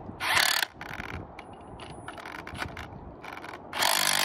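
Rotary hammer drill set to spin only, turning a thread adapter on an old wedge bolt to try to back it out. A short burst about half a second in, scattered clicks and knocks, then near the end the motor starts running steadily under load.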